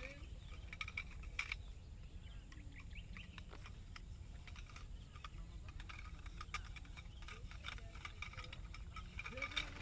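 A tent being taken down: scattered light clicks and rustles of tent fabric and poles over a steady low rumble.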